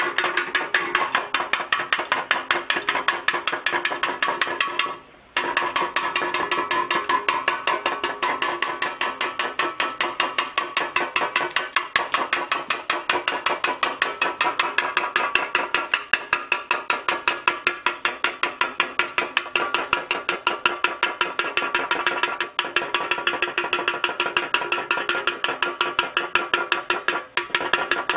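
Rapid, even knocking, several sharp strikes a second with a ringing pitch, broken by short pauses about five seconds in and near the end.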